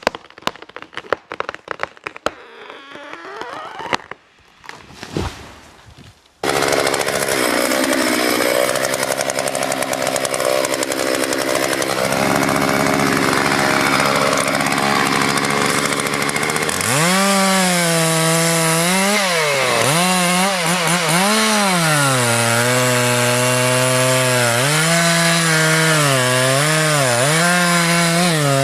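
Scattered knocks and clicks, then about six seconds in a two-stroke chainsaw comes in abruptly and loud at high revs. From about halfway it is cutting wood, its engine pitch dipping and rising again and again.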